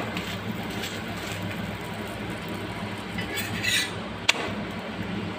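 Aloo paratha frying on an oiled iron tawa over the stove: a steady hiss and hum. A little past three seconds in, a steel spatula scrapes under it, then clinks once against the tawa as the paratha is turned.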